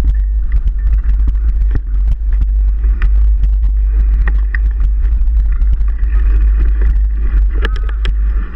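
Mountain bike on the move, filmed from the rider's camera: heavy wind rumble on the microphone with constant rattling and knocking from the bike, and a brief squeak near the end.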